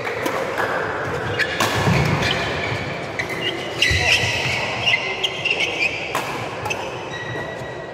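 Badminton rally in a sports hall: sharp racket hits on the shuttlecock every second or so, with thudding footsteps and high squeaks of court shoes on the floor, echoing in the hall.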